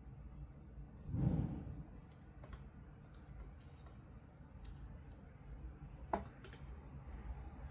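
Hands handling toy packaging: scattered light clicks, a muffled thump about a second in, and a sharper click about six seconds in.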